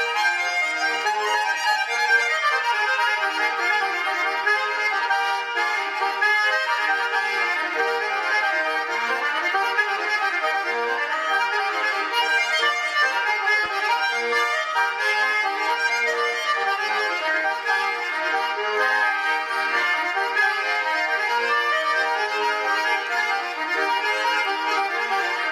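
Russian garmon (diatonic button accordion) playing a traditional folk dance tune (naigrysh), a steady run of quick reed notes with chords.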